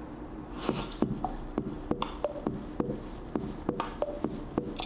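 Quiz-game countdown timer: steady ticking about three times a second, with short plucked notes mixed in.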